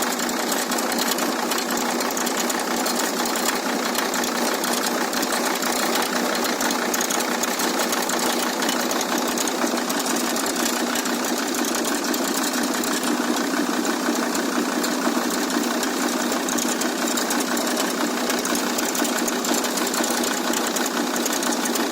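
Audi A6 C4 2.5 TDI five-cylinder diesel engine idling steadily with a rapid knocking from the alternator (auxiliary) belt tensioner, the sign of a faulty aftermarket tensioner.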